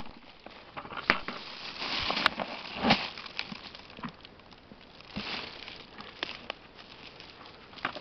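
Rustling and crackling of dry pine needles and ground litter while a mushroom is picked by hand from the forest floor, with scattered irregular clicks and a few louder crackles about one and three seconds in.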